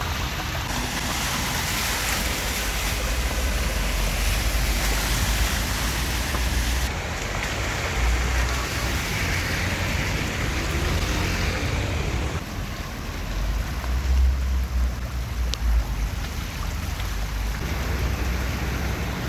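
Heavy rain and floodwater rushing through a street, with wind buffeting the microphone in low gusts.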